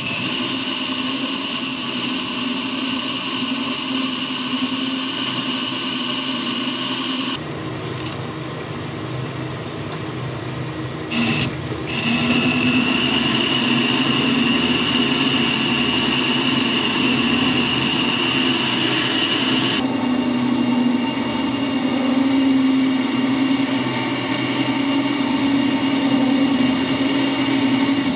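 Harrison metal lathe running while its carbide tool turns a steel bar, a steady mechanical sound with a high-pitched whine. It drops and changes character about seven seconds in, comes back louder around twelve seconds, and the whine changes again about twenty seconds in.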